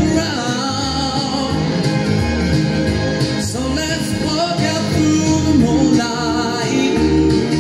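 A man singing a country song over backing music with guitar.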